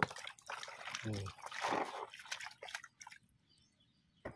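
Water splashing and dripping in a basin as hands wash skinned frogs. There is a short low voice sound about a second in. The splashing dies down after about three seconds, and a single sharp click comes near the end.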